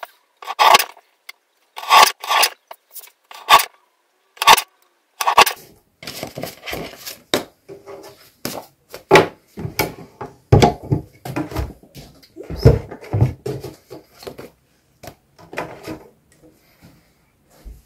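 Lever-arm paper guillotine cutting paper: a series of short, sharp cutting strokes, then busier scraping and knocking as sheets are slid and lined up against the blade.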